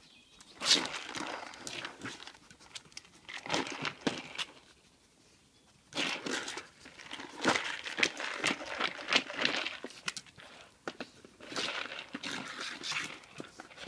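Hard plastic dog treat maze being nosed and shoved across concrete paving slabs by a Labrador: irregular clattering knocks and scraping of the plastic on the stone, in bursts, with a quiet pause about five seconds in.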